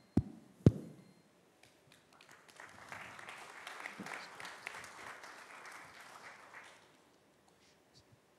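Two short thumps near the start, then an audience applauding, the clapping swelling about two seconds in and dying away before the end.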